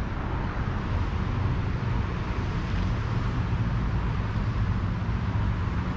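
Steady outdoor background rumble with a hiss above it, even throughout and without distinct events.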